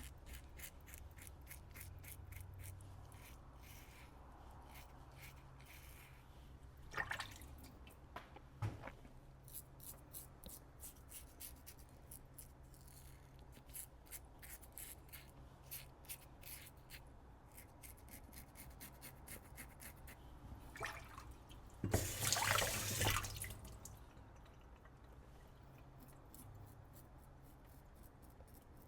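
Double-edge safety razor strokes through shaving lather on stubble: a run of fine, rapid crackling scrapes. About three quarters of the way through, tap water runs for a second or two, typical of rinsing the razor.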